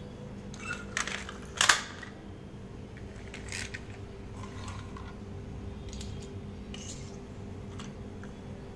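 Plastic toy cars clicking and knocking on a tiled floor as they are handled, a few scattered knocks with the loudest about one and a half seconds in, over a steady low hum.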